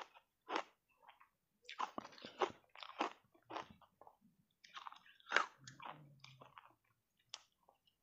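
Block ice coated in matcha powder being bitten and chewed close to the microphone: irregular crisp crunches, with a quieter pause just before the middle and the loudest crunch about five and a half seconds in.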